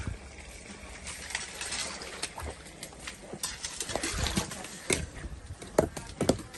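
A spade scraping and scooping through wet sludge and shallow water at the bottom of a drained pond, with irregular knocks and wet slaps; the two sharpest knocks come near the end.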